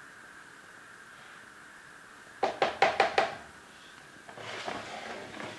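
A metal kitchen utensil knocked sharply against a cooking pot about five times in quick succession, then a softer scraping clatter, over a faint steady hiss.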